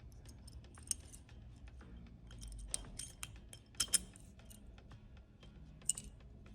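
Faint handling of a Schlage lock cylinder and its key: scattered small clicks and taps, the sharpest a couple of ticks about four seconds in and one near the end.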